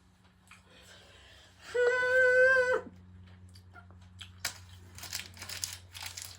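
A single steady electronic beep lasting about a second, followed from about four and a half seconds in by irregular crackling and rustling.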